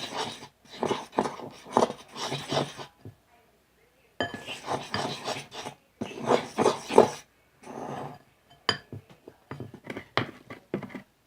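A small fork stirring sticky clear slime in a bowl, clinking and scraping against the bowl in spells, with a pause of about a second and more separate sharp taps near the end.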